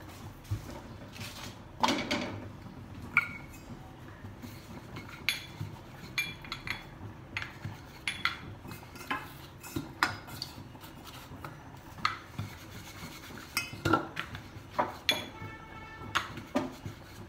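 Kitchen clatter while chapati dough is rolled out: a wooden rolling pin knocking and rolling on a wooden rolling board, mixed with short metallic clinks. About a dozen or more separate knocks and clinks, the loudest about two seconds in and again near the end.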